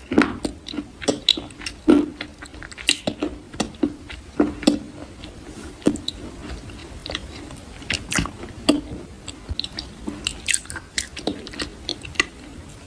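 Soft crunching close to the microphone: a mouth biting and chewing something crisp, in irregular clusters of crackles with short pauses between.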